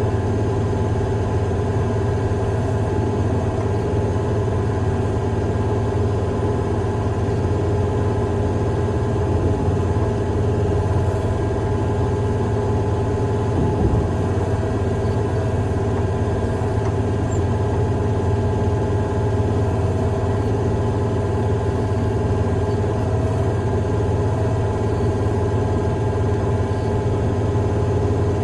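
Heavy-equipment diesel engine running steadily at a constant speed, with a strong low hum and a steady mid-pitched whine.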